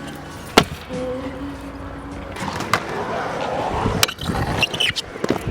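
Freestyle stunt scooter rolling on skatepark concrete, the wheels giving a steady grinding rumble, with several sharp clacks of landings and deck hits, about four in all.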